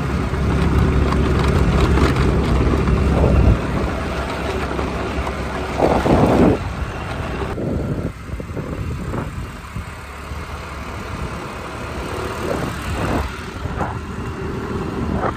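Motor scooter riding along a road: wind rushing over the microphone, with the scooter's small engine running steadily underneath and a brief louder rush about six seconds in.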